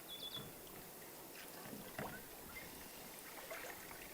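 Canoe paddling on calm water, quiet: soft paddle dips and a few light knocks. A short high chirp sounds near the start.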